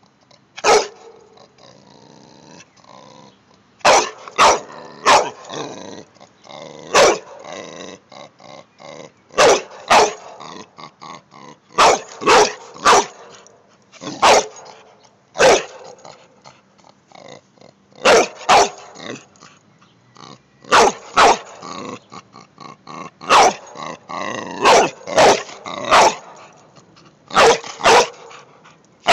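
A dog barking in short, loud, sharp barks at irregular intervals, often two or three in quick succession, with growling in between.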